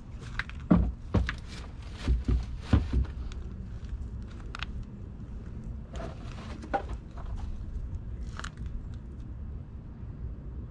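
Handling noise as a plastic hive box with wooden frames is set up on a shelf: several sharp knocks and clunks in the first three seconds, then scattered lighter taps and clicks, over a steady low rumble.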